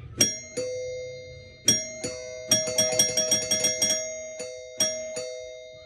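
Old two-note doorbell chime ringing: ding-dong pairs, then a quick run of repeated strikes for about a second and a half, then a few more, each note ringing on and fading away.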